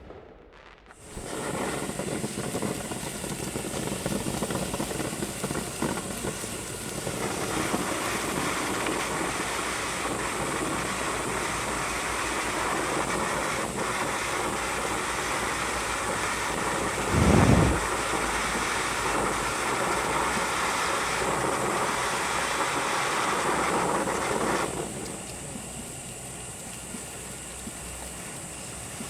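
Consumer firework fountain burning with a steady rushing hiss that starts about a second in and stops suddenly a few seconds before the end, with one loud low thump about two-thirds of the way through.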